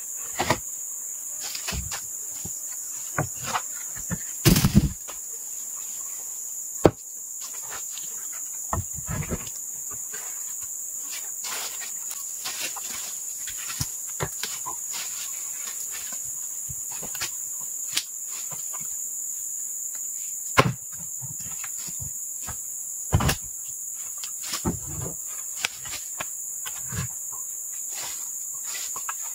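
Steady high-pitched insect chorus, with scattered knocks and thuds of heavy ulin (Borneo ironwood) boards being lifted, shifted and set down against each other; the loudest thuds come about four seconds in, about twenty seconds in and about twenty-three seconds in.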